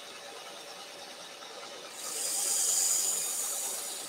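Steel knife blade drawn across a running belt grinder's abrasive belt: a high, loud hiss of grinding that starts about halfway in and lasts nearly two seconds. It is a sharpening pass raising a burr along the edge.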